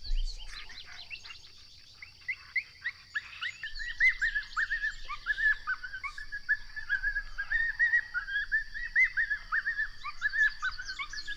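Small birds chirping and twittering in a dense, rapid chatter that goes on throughout, over a thin steady high tone. A brief low rumble comes at the very start.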